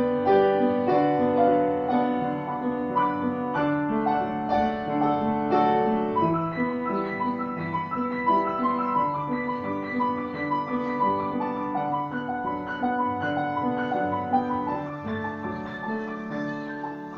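Grand piano played live, a continuous piece of held chords with a melody above them, easing gradually quieter toward the end.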